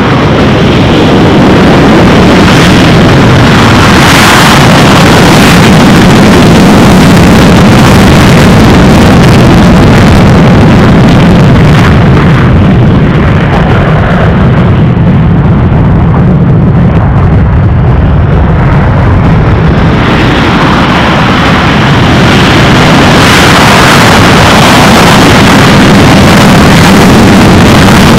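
F-15C Eagle jet fighters' twin afterburning turbofan engines at full afterburner on takeoff: a loud, steady jet roar. The high hiss fades for several seconds around the middle as a jet climbs away, then builds again as another rolls down the runway.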